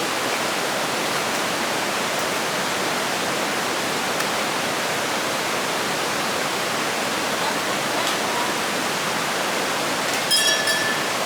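Steady rushing noise of running water. A brief, high-pitched ringing tone sounds near the end.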